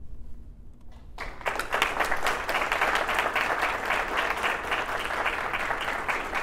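Applause from a small audience, many hands clapping, starting about a second in and carrying on steadily.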